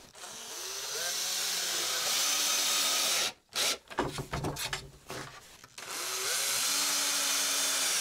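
Cordless drill-driver driving screws through plywood into a wooden batten: two runs of a few seconds each, the motor note rising as it spins up and cutting off abruptly, with shorter bursts between.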